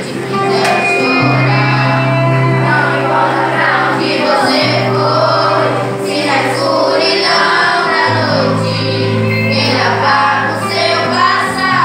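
Children singing a Christian praise song with acoustic guitar accompaniment, over long held low notes that change every couple of seconds.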